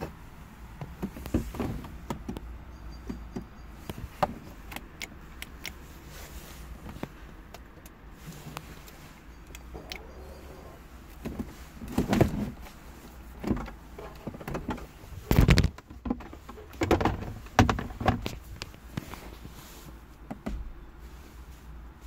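Scattered clicks, knocks and rustles of hands working on a car's stripped interior trim and loose wiring connectors, with a louder thump about two-thirds of the way through.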